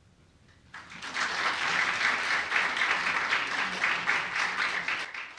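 Audience applauding, starting under a second in and dying away near the end.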